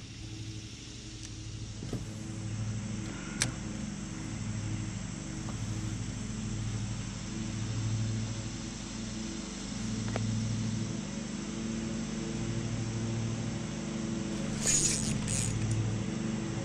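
Steady low engine drone that swells and fades about every two seconds, with a single sharp click and a brief light rattle near the end.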